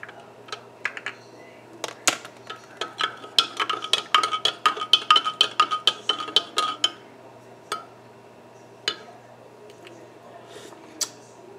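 A metal spoon stirring coffee in a ceramic mug, clinking quickly against the inside for about five seconds, with each strike leaving the mug ringing. A few single clinks follow.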